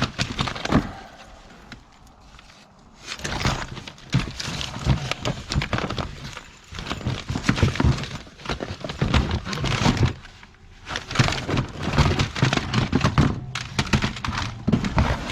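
Belongings being rummaged through and moved about: irregular knocks, clatter and rustling of objects and packaging being handled, with a quieter pause about two seconds in.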